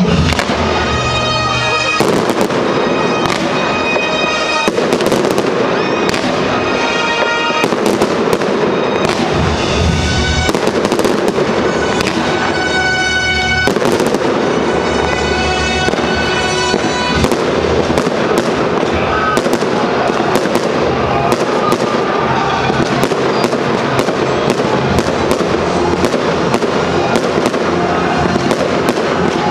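Fireworks display going off without a break: a dense stream of bangs and crackling bursts, over music with long held chords.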